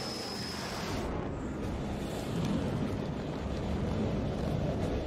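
F/A-18 jet engines on approach: a high turbine whine over a rushing noise, changing about a second in to a deeper, rougher rumble.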